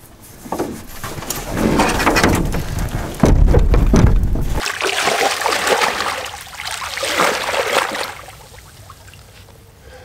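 A canoe being set down into shallow water, with a heavy low thump about three seconds in, followed by splashing and sloshing as a person wades in the shallows beside it.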